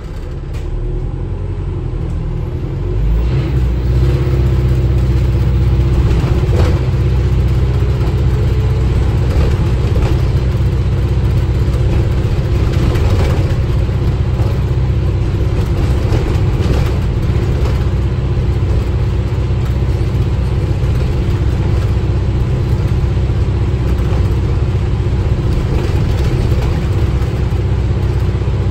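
Cabin sound of an Alexander Dennis Enviro400H hybrid double-decker bus's drivetrain pulling away: the drone builds about three seconds in as the bus accelerates, then holds steady and loud.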